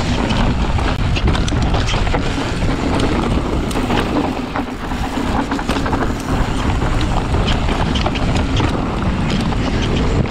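Mountain bike descending a steep, rough downhill trail: wind rumbling on the action camera's microphone, with the tyres on dirt and rock and the bike rattling in many small knocks.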